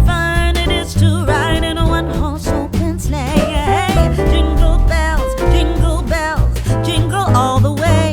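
Background song with a sung vocal line over a steady bass beat.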